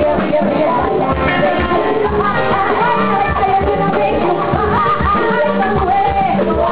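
Live band music: a singer over electric guitar and drums with a steady beat.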